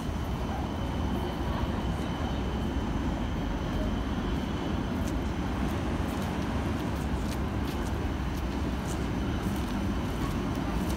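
Steady city-street traffic noise, a low rumble of cars and a passing tram.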